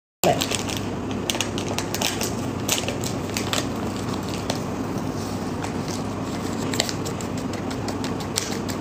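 Packaging of an instant coffee product being handled, crinkling as it goes: a stream of small irregular crackles over steady room noise.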